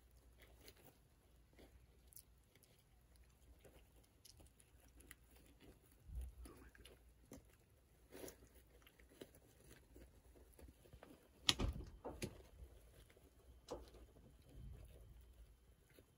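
Baby raccoons wrestling in wood-shaving bedding: faint rustling, scratching and small clicks, with a few soft thumps, the loudest about eleven and a half seconds in.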